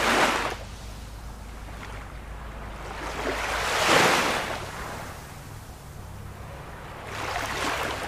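Sea waves breaking, with three surges of surf that swell and fade: one right at the start, the loudest about halfway through, and a smaller one near the end.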